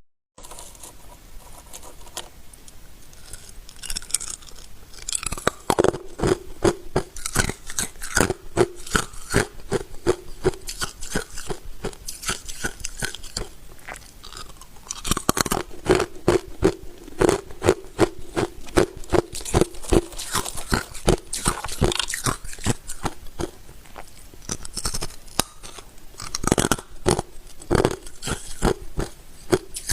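A person biting and chewing ice: dense runs of crisp, crackling crunches with short lulls between bites.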